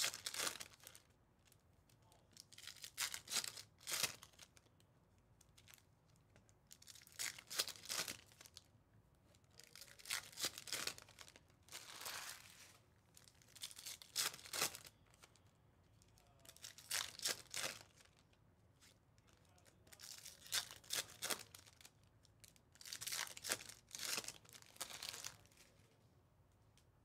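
Foil trading-card packs being torn open one after another, a short crinkly rip every two to three seconds.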